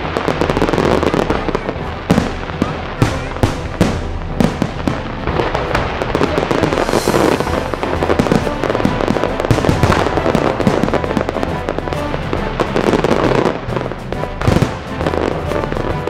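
New Year's fireworks show: shells bursting in quick succession, many sharp bangs and crackles every second, over music.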